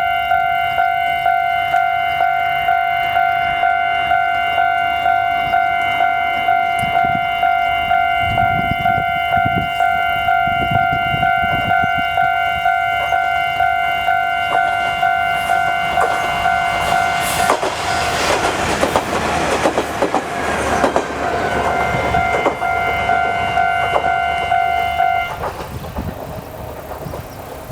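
Japanese level-crossing warning bell ringing in a steady even beat while a Kominato Railway KiHa 200 diesel railcar approaches and passes. The railcar's DMH17C engine is running in the transmission's direct-drive gear with a deep bass note, and its wheels click over the rail joints. The passing is loudest in the middle of the stretch, and the bell stops shortly before the end.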